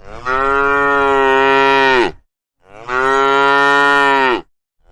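A cow mooing: two long moos, each about two seconds, with the pitch dropping at the end of each.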